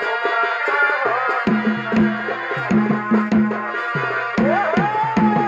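Purulia Chhau dance music: drums beat a fast, driving rhythm while a wind instrument plays a melody that slides up and down in pitch, the melody swelling about four seconds in.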